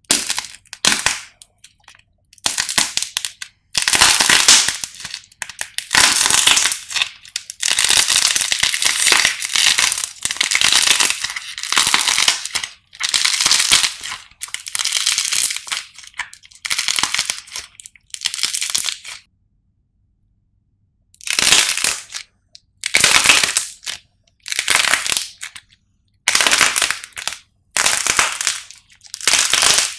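Hardened painted clay crust of a twisted bread-shaped clay loaf cracking and crunching as hands bend and squeeze it apart, the soft coloured clay inside tearing with it. It comes in a run of separate crunchy crackling bursts, each a second or a few long, with silent gaps between.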